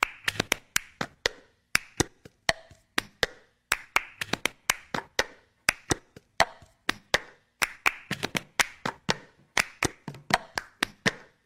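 Sharp percussive claps in a quick syncopated rhythm, several a second, like a clapped intro beat.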